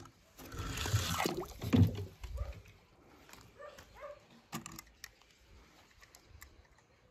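A small die-cast toy car splashing into a pool of water, with a burst of splashing lasting about two seconds, then scattered small drips and splashes.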